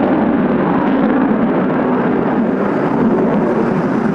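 Eurofighter Typhoon fighter jet's engines during a display flyby: a loud, steady rumble.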